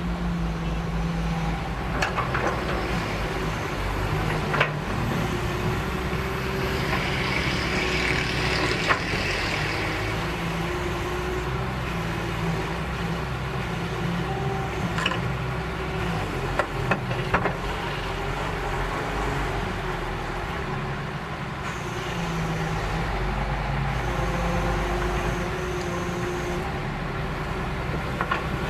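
Heavy excavator diesel engine running steadily, with several sharp metallic knocks and a hiss about a third of the way in.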